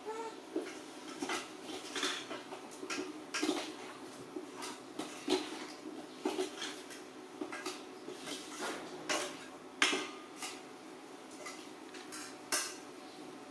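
Kitchen utensils clinking and knocking against pots and dishes: irregular clinks, several a second at times, with the loudest about ten seconds in and another near the end.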